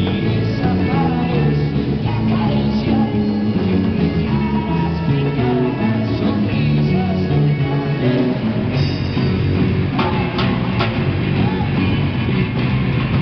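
Live rock band playing, with electric guitars and congas over a drum kit.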